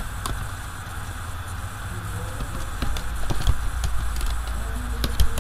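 Steady low electrical hum and hiss of the recording background, with a few sparse clicks of computer keyboard keys as code is typed slowly.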